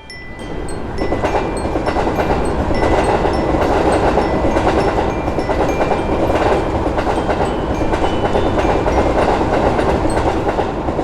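Electric commuter train running along the track, a steady rumble of wheels on rails with rapid clicking that builds up over the first second. The title has the trains running over bumpy track.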